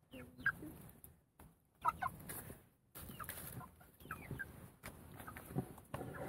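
Mechelner (Malines) chickens clucking and peeping softly: a string of short, high calls that bend in pitch.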